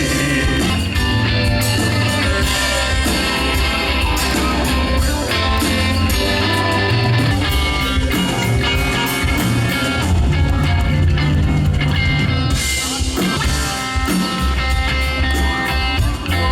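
Live rock band playing, with electric guitar prominent over a steady bass line.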